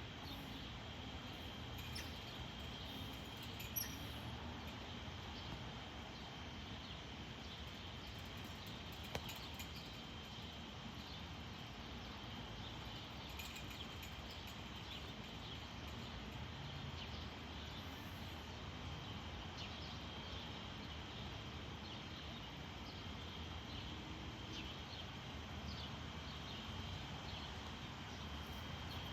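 Quiet outdoor background: a steady low rumble with a thin, steady high tone over it and a few faint clicks, two of them sharper about four and nine seconds in.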